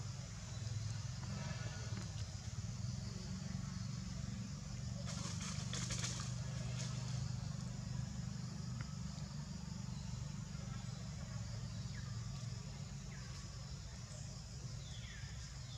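A steady low background rumble, with a short burst of rustling crackles about five to seven seconds in.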